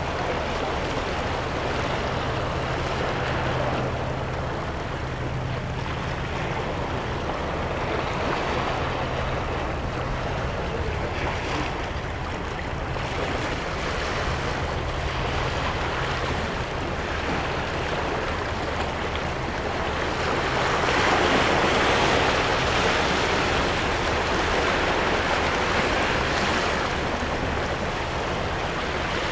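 Small sea waves washing over and draining off seaweed-covered shore rocks in a continuous wash that swells and ebbs. The loudest surge comes about two-thirds of the way through.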